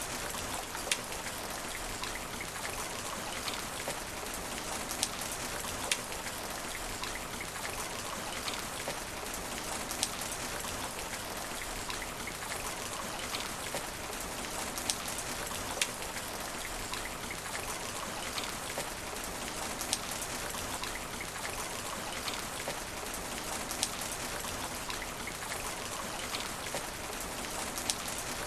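Steady rain falling on asphalt: an even hiss of rainfall with scattered sharper splats of single drops landing close by.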